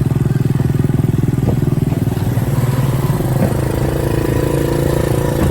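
Small motorcycle engine running steadily on the move, with a fast, even firing pulse.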